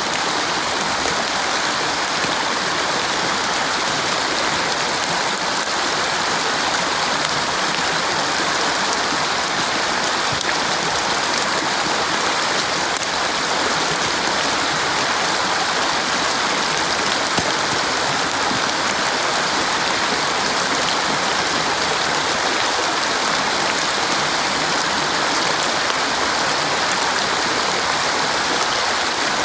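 Small rocky creek running over stones: a steady, even rush of water.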